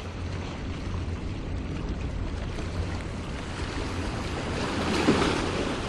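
Small waves washing and splashing against jetty rocks, with a louder wash about five seconds in, over a steady low rumble.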